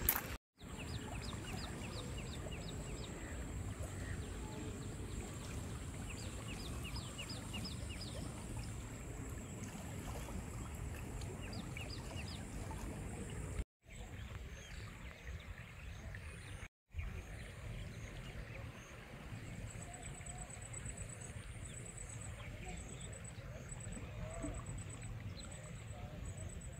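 Steady rush of flowing floodwater in a river, cutting out briefly three times. Series of quick high bird chirps come in the first half, and a faint, rapid, high-pitched pulsing trill comes in the second half.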